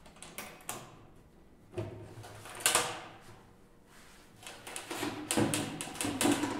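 Metal battery box on an electric snowmobile being opened by hand: clicks and knocks from the latches and lid, with a loud clank about two and a half seconds in, then a clatter of knocks near the end as the lid is lifted.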